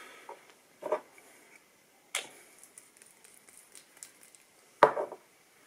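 A few small knocks and clicks from handling at the fly-tying bench: one about a second in, a sharp click a little after two seconds, and the loudest knock near the end.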